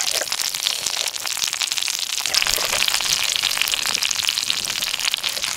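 Giant river prawns sizzling on a hot flat stone over a wood fire: a steady, dense crackle of tiny pops.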